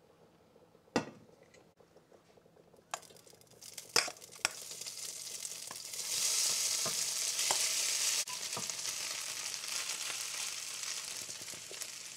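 Potatoes scraped from a metal bowl with a spatula into a skillet of hot vegetable oil. A sharp knock comes about a second in and a few clinks follow. Then the oil starts sizzling, swells to its loudest as the potatoes go in, and keeps frying steadily.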